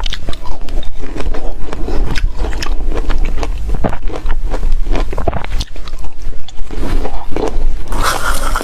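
Close-miked chewing and crunching of shaved refrigerator ice: a dense, irregular run of crisp crunches, louder near the end.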